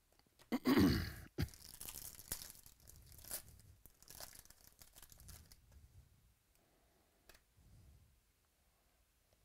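A baseball card pack's wrapper torn open sharply, followed by several seconds of crinkling and rustling of wrapper and cards as they are handled. The rustling dies away about six seconds in.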